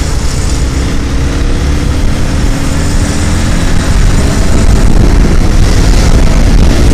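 Honda CBR150R single-cylinder engine with its stock exhaust, running under way in traffic, mixed with wind rush on the bike-mounted microphone; it gets louder about four seconds in as the bike picks up speed.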